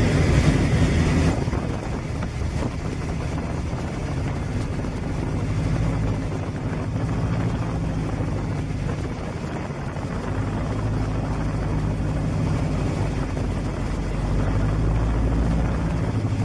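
A small propeller bush plane's piston engine and propeller, heard from inside the cabin: a steady drone whose note weakens and comes back a few times, with a rush of air hiss in the first second or so.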